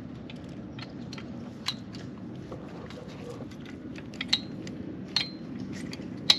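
Socket on a long extension bar clicking and clinking against the exhaust flange nut and surrounding metal while fitting the exhaust header to a Harley-Davidson Sportster's front cylinder. There are many light clicks and several sharp metallic taps that ring briefly, the loudest near the end.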